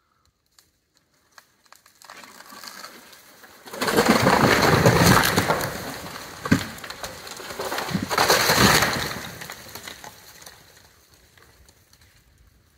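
A felled tree crashing down through the branches about four seconds in, with a heavy thud as it lands, then a second tree crashing down a few seconds later, knocked over by the first.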